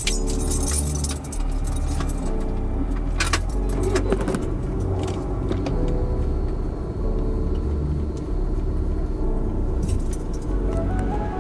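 Steady low road rumble inside a moving car, with short bursts of light jangling and rattling about three to four seconds in and again near the end.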